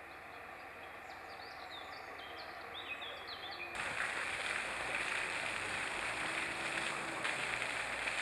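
Outdoor ambience: small birds chirping over a low background hiss. About four seconds in, a cut brings a louder, steady rushing noise.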